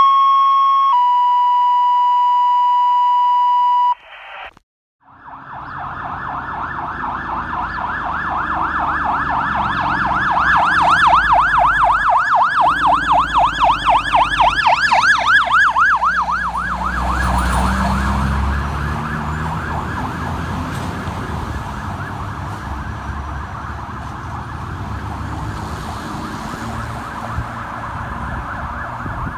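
Two steady electronic tones to begin with, a short one and then a longer, slightly lower one, in the pattern of a fire-dispatch two-tone page. Then a fire apparatus electronic siren in a fast yelp, about four to five rises a second, growing loud as the tiller ladder truck passes with a low diesel rumble, then blurring and fading.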